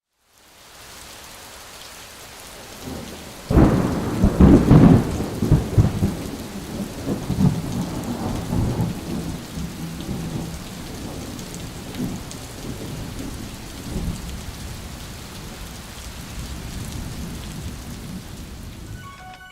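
Steady rain with a loud clap of thunder about three and a half seconds in, rumbling on and fading over several seconds, followed by fainter rolls of thunder.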